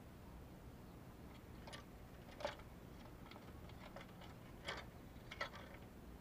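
A spotted dove moving about inside a wire cage: a few faint, irregular taps and clicks, the loudest about two and a half seconds in.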